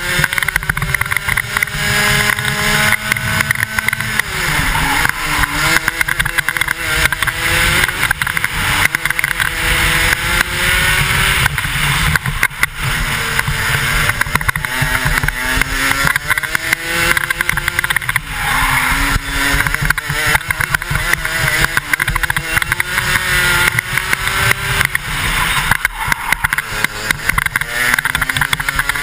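125cc two-stroke kart engine at racing speed. Its pitch climbs steadily along the straights and drops sharply each time the kart brakes for a corner, several times over, under heavy wind buffeting on the helmet-mounted microphone.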